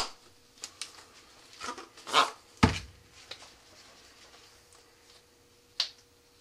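Handling noises on a workbench: a brief rustle about two seconds in, then a knock as a rocket motor liner tube is set down on the table, and a small click near the end.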